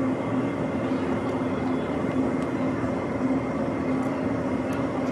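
Steady drone of building machinery in a plant room, an even noise with a constant low hum running through it, and a few faint clicks.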